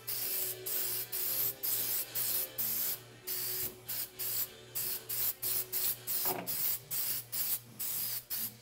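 Aerosol spray can of Krylon metallic silver paint hissing in short, rapid bursts, about two or three a second, laying on thin coats.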